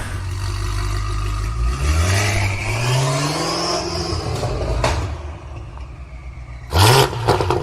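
BMW M8's twin-turbo V8 revving: the revs climb for about two seconds, then fall away. A few loud short sounds come in near the end.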